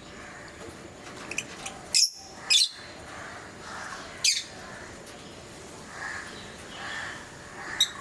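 Pet lovebirds calling: short, sharp, high-pitched shrieks about two seconds in, again about four seconds in and near the end, over softer chattering.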